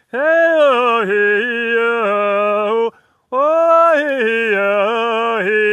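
A man chanting in long, held sung notes on a mostly steady pitch: two drawn-out 'hey' calls, with a short break about three seconds in.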